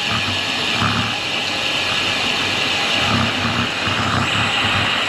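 Steady rush of wind and tyre noise from a road bike rolling on a grooved new concrete road, heard through a bike-mounted GoPro, with uneven low buffeting as the wind catches the microphone.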